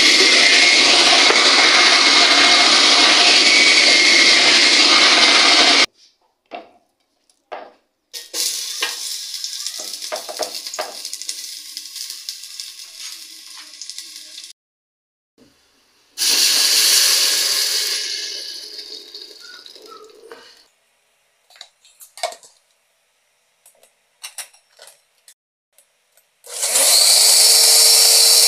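Oster countertop blender running at full speed on a tomato mixture, stopping suddenly about six seconds in. Quieter stretches of hissing follow, with scattered clicks and knocks. Near the end the blender starts again, now blending green guaje seeds with a steady motor hum.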